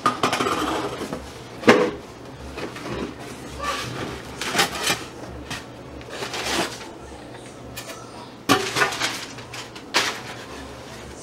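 Cardboard shipping box being handled and unpacked: flaps bent open and the packing inside rustled by hand, in irregular rustles and scrapes with a few sharp knocks.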